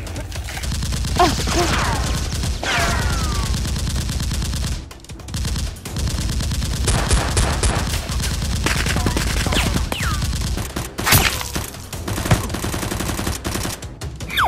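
Rapid automatic gunfire sound effects in long bursts for a Nerf blaster fight, with a brief lull about five seconds in and a few sharper single shots near the end.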